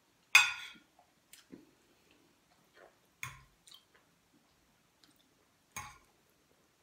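A metal fork knocks against a ceramic plate three times while spaghetti is twirled, the first knock by far the loudest, with soft chewing sounds between.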